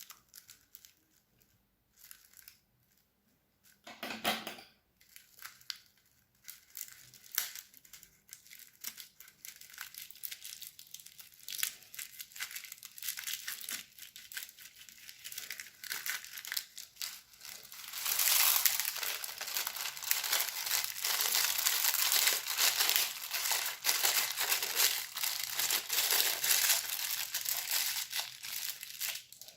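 Crunchy slime being squeezed and worked in a plastic piping bag, crackling and crinkling. Scattered pops at first, then dense, louder crackling for the last third.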